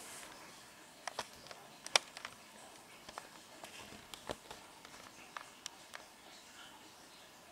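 Faint, scattered soft clicks and taps from a cat moving on a tabletop and licking its fur, the loudest tap about two seconds in.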